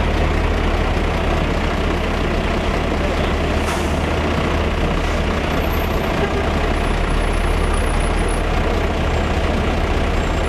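Steady, loud low rumble of heavy vehicle engines running, with a continuous wash of noise.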